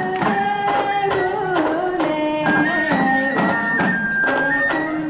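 Bon odori music: a traditional Japanese folk tune whose held melody line slides between notes, over a steady beat of about two strikes a second.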